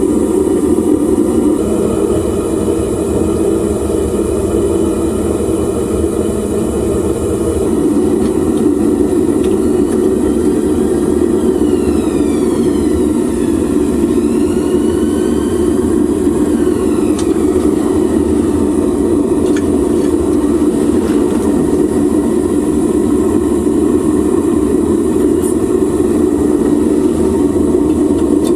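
Homemade propane furnace burner firing steadily, a continuous low rushing noise of the gas flame.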